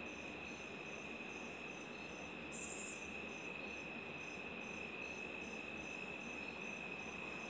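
Crickets chirping at night: a steady high trill with a faster pulsing chirp above it, and a brief higher buzz about three seconds in.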